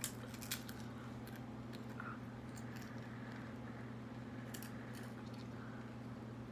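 Potato chips crunched and chewed by mouth: a few sharp crackling bites near the start and again past the middle, over a steady low hum.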